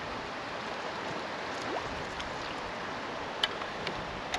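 Steady rush of flowing creek water, with a few sharp clicks and knocks of gear being handled in the kayak, the loudest about three and a half seconds in.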